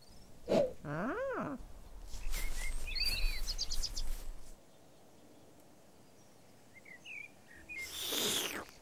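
Birds chirping over a soundtrack, with a short pitched sound that rises and falls about a second in and a loud falling swoosh near the end.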